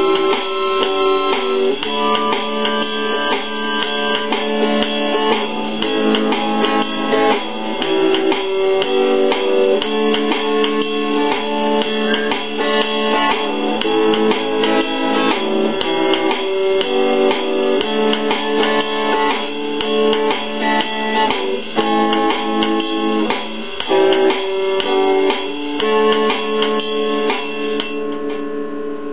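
Acoustic guitar strummed with a harmonica playing held, changing chords over it, an instrumental passage with no singing. The music dies away near the end.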